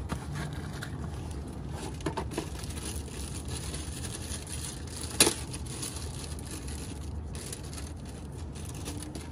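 Rustling and crinkling handling noises as the new oxygen sensor is fetched and handled, with one sharp click about five seconds in.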